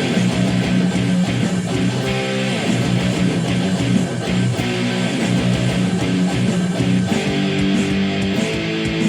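Guitar music: strummed chords held and changed every second or so, with a steady, full sound.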